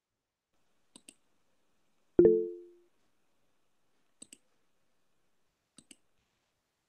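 Google Meet chat-message notification chime: a short, low chime of a few tones sounding together, starting suddenly about two seconds in and dying away within about half a second, as a new chat message arrives. Faint pairs of quick clicks sound three times around it.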